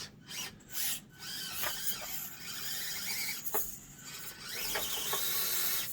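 Axial SCX24 micro crawler's small electric motor and gears whining as it crawls over the track, in uneven spurts with a couple of brief dips. The truck is not driving right, a fault the owner has not yet found.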